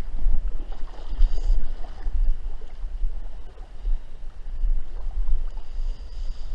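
Water sloshing and splashing close by as a hooked trout thrashes around a wading angler's legs, over the steady rush of the river, with a deep uneven rumble underneath.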